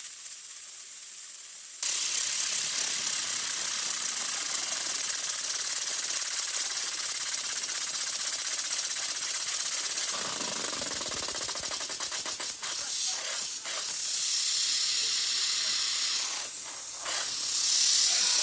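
A waterjet stream cutting into a spinning wooden blank, a loud steady hiss that jumps up sharply about two seconds in. A fast, even ticking runs through the hiss for a couple of seconds past the middle.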